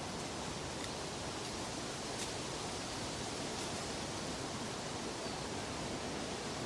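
Steady, even rushing noise of a natural outdoor ambience, with a few faint clicks.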